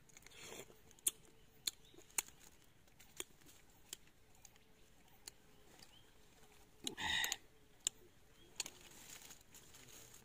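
Faint scattered sharp clicks and crunches from biting and chewing small, crisp green wild mangoes, with a brief louder crunching burst about seven seconds in.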